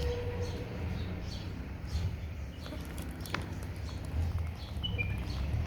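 Outdoor background with a steady low rumble, a sharp tick about halfway through, and a few short bird chirps near the end.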